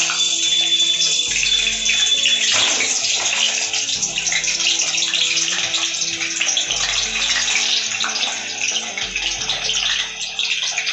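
Raw potato chunks deep-frying in hot oil in a kadai: a loud, steady sizzle as more pieces are dropped in.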